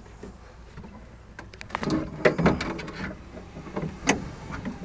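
Irregular clicks, knocks and rattles of hands working at the lock cable and latch mechanism inside a stripped car door, with two sharper clicks about two and four seconds in.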